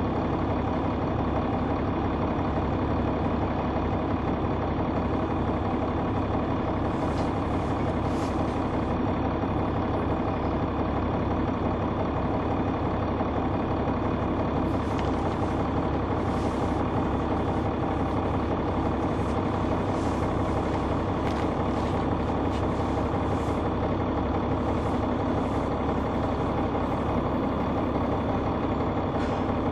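Caterpillar C9 ACERT inline-six diesel of a 2004 Neoplan AN459 articulated bus running steadily, heard from inside the passenger cabin as an even hum. Faint clicks and rattles come and go.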